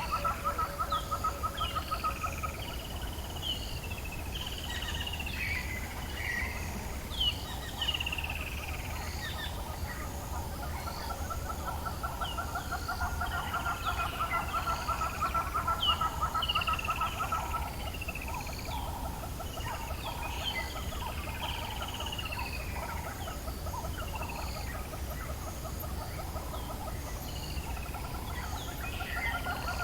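Dawn chorus in the African bush: many birds calling at once with short whistled and slurred notes, over a steady, fast-pulsing trill.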